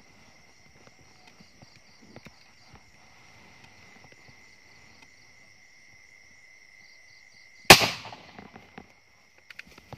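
A single sharp, very loud gunshot crack about three-quarters of the way in, fired point-blank at a bandicoot rat, dying away quickly. Before it there is a faint, steady high-pitched trill of night insects.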